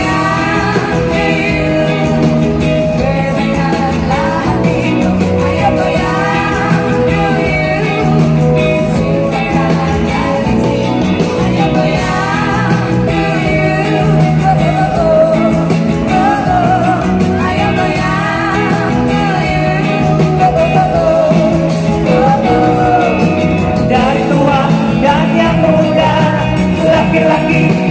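A live pop band and singers performing a song over a loud PA system, with a steady beat under the sung vocals.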